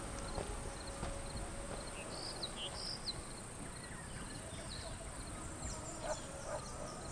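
Quiet outdoor ambience: scattered short bird chirps over a steady low noise bed and a faint, steady high-pitched hiss.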